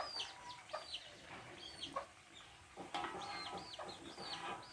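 Chicks cheeping nearby: many short, high chirps that each drop in pitch, several a second, with a few faint clicks in between.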